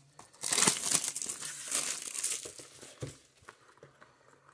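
Clear plastic wrap crinkling as it is stripped from a cardboard box of baseball card packs and crumpled in the hand, for about three seconds. Then a soft knock and a few light handling ticks on the box.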